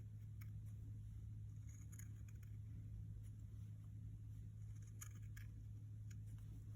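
A few faint, scattered snips of scissors cutting through folded fabric, over a steady low hum.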